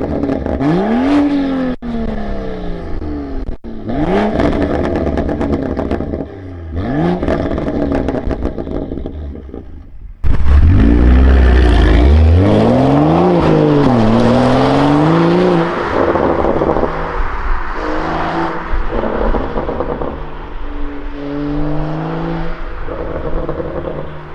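BMW M2 F87's turbocharged 3.0-litre N55 straight-six, heard through a Milltek cat-back valved exhaust. It is revved several times while standing still, each rev rising and falling. About ten seconds in it pulls away hard with a sudden loud surge, and its pitch climbs and drops several times as the car accelerates off and grows fainter.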